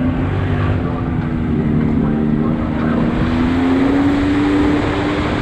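Can-Am Maverick X3 Turbo RR side-by-side's turbocharged three-cylinder engine running steadily while driving through muddy water on a trail. Its pitch eases slightly, then climbs a little around three to four seconds in, over steady tyre and water noise.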